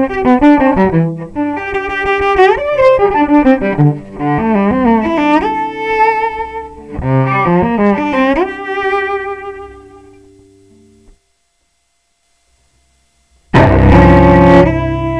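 Solo cello, bowed, taken direct from a David Gage Realist bridge pickup with no microphone, after bridge and pickup installation changes: a phrase of notes with vibrato, the last one held and fading to silence about three-quarters of the way in. A couple of seconds later another loud bowed cello passage starts, the same pickup in its standard installation.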